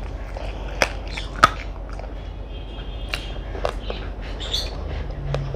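Eating sounds with two sharp clicks, about a second and a second and a half in, the second the loudest, among softer mouth and hand noises. Small birds chirp faintly in the background.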